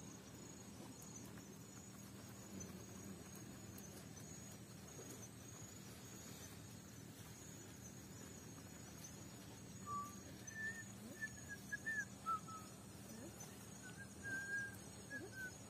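Faint night-time outdoor ambience: an insect trills steadily at a high pitch, over a faint low hum. From about ten seconds in come a handful of short, higher chirping notes.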